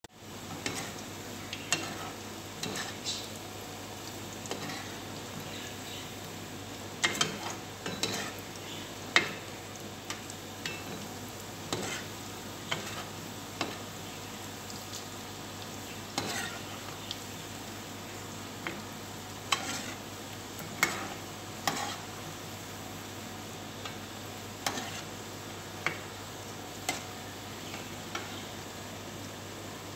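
Tuna balls deep-frying in a pan of hot oil: a steady sizzle, with irregular sharp taps and pops as a slotted metal spoon stirs and turns them in the pan.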